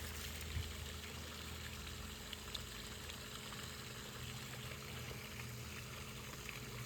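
Faint, steady sound of moving water.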